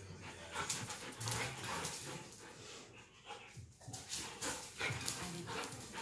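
A Beauceron and a Belgian Tervuren playing: open-mouthed, noisy panting in quick repeated breaths, with the scuffle of their movement.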